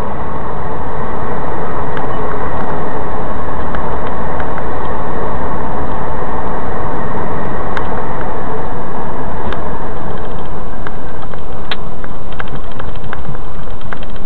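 Steady road and engine noise inside a moving vehicle, picked up by its dashcam microphone. It fades in over the first second or two, and scattered small clicks and rattles come more often near the end.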